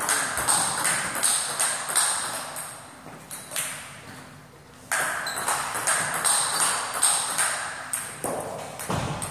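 Table tennis ball knocked back and forth in a rally: quick, evenly spaced clicks of paddle hits and table bounces. Play stops for about two seconds midway, then starts again, with a dull thump near the end.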